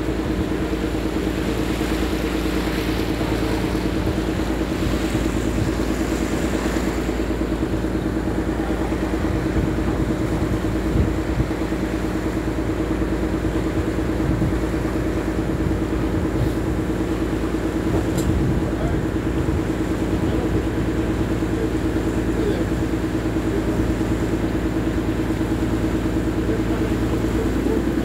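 Motor of a small open fishing boat running steadily under way, a constant even hum mixed with the rush of water and wind.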